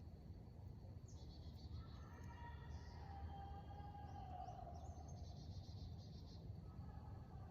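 A faint, distant, long drawn-out wail held at a fairly steady pitch, starting about two seconds in and sagging slightly before fading, then rising again near the end; the uploader puts such screams down to a woman next door. Birds chirp in short trills over a low steady rush of outdoor noise.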